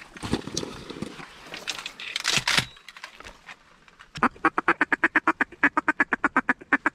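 Rustling and clicks of shotgun shells being handled in a bag, then, about four seconds in, a fast, even run of quacks, about ten a second, blown on a duck call to bring in ducks.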